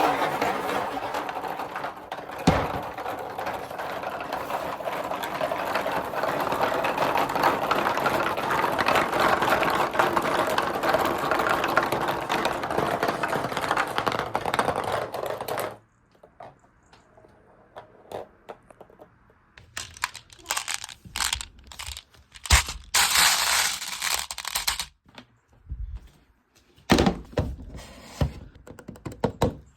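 Many marbles and balls rolling and clattering along a handmade marble run: a dense, continuous rattle with one sharp click a couple of seconds in, which cuts off abruptly about halfway. After a few quiet seconds come scattered clicks and short rattles of a few balls at a time.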